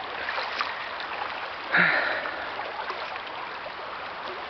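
River water running steadily, with one short, louder burst of noise about two seconds in.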